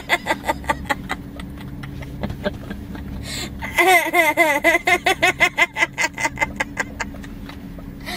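A young girl in a fit of giggles: rapid, breathy bursts of laughter that swell into loud, high-pitched peals about four seconds in, then trail off. A steady low hum runs beneath.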